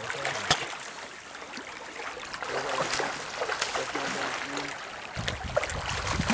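A river runs over shallows while a hooked trout splashes and thrashes at the surface, with scattered sharp clicks and splashes; the sharpest comes about half a second in. A low rumble comes in near the end.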